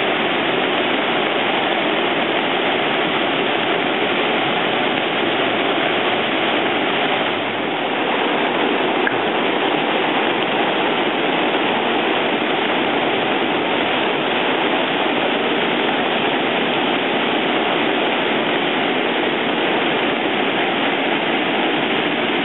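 Swollen creek in flood, fast floodwater rushing and churning in a steady, loud, unbroken wash of noise.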